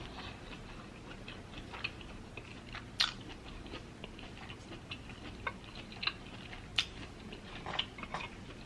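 Close-up chewing and mouth sounds of someone eating lobster tail: soft irregular clicks and smacks, with a sharper click about three seconds in and another near seven seconds.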